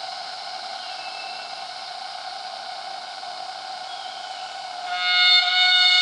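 Cicadas droning steadily in tropical forest. About five seconds in, a much louder cicada song cuts in suddenly, a high, steady tone made of several pitches at once.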